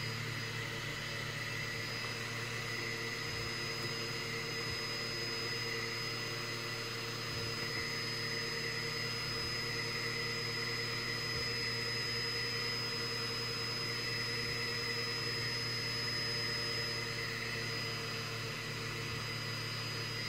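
Anet A3 3D printer running with its hotend held at temperature: a steady hum from its cooling fans with a thin high whine over it.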